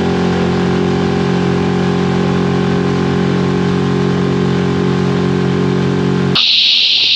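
Outboard motor of a small aluminium boat running at steady revs. About six seconds in it cuts abruptly to a steady hiss.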